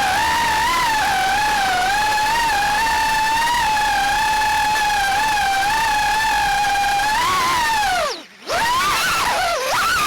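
Multirotor drone's propellers and motors whining steadily, the pitch wavering as the throttle shifts. About eight seconds in the whine drops sharply in pitch and cuts out for a moment, then comes back, wobbling up and down.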